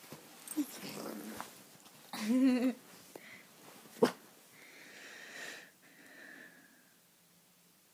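Cavalier King Charles Spaniel puppy snuffling and wheezing, with one short, loud, wavering vocal sound about two seconds in. A sharp click comes about four seconds in.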